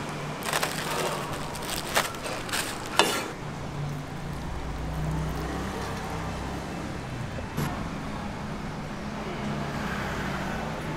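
Steady low hum of a car heard from inside its cabin, with a few sharp clicks in the first three seconds and one more clack later.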